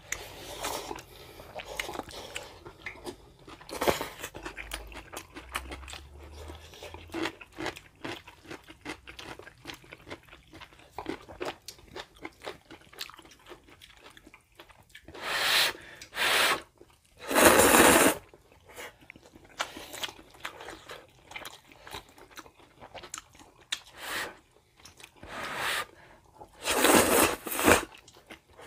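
Close-up chewing and slurping of Jjapaghetti instant black-bean noodles eaten with chopsticks. Mostly soft, wet mouth sounds and small clicks, with a few loud slurps, three in a row just past halfway and more near the end.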